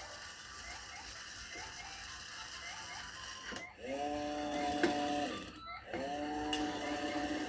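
Claw machine mechanism ticking softly, about two and a half clicks a second, then its motor whirring twice, each whir winding up, holding for about a second and a half and winding down.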